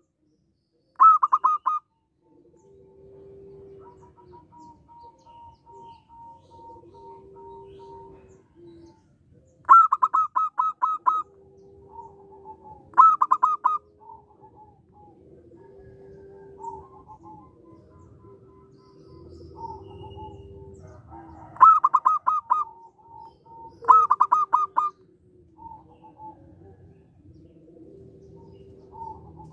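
Zebra dove (perkutut) calling: five short bursts of quick, high repeated notes, each about a second long, with softer, lower, longer cooing notes in between.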